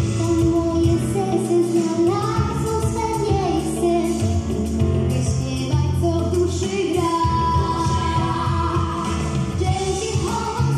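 A young girl singing a song into a microphone over a recorded backing track, amplified through the hall's speakers.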